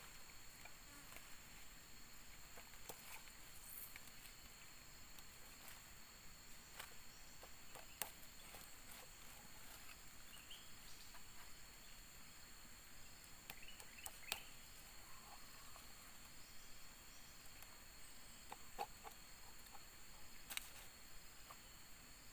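Steady high drone of forest insects, with scattered short sharp knocks and taps as a large knife blade chips and prises at the husk and shell of a young coconut to cut it open; the strongest knocks come about 8, 14 and 20 seconds in.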